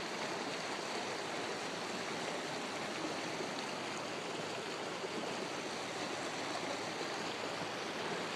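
Running water: a stream or river flowing steadily over rocks, a continuous even rush.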